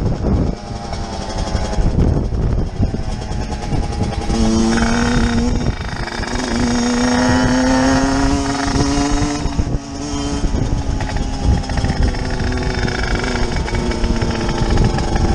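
Motorcycle engines running under throttle, with wind buffeting the helmet microphone. About four and a half seconds in, one engine settles into a steady note that climbs slowly for about five seconds, throttle held through a wheelie.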